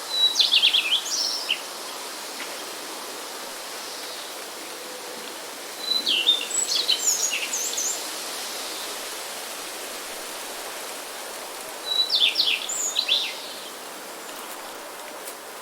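A songbird singing three short, quick phrases of high chirps, each about a second and a half long and roughly six seconds apart, over a steady background hiss.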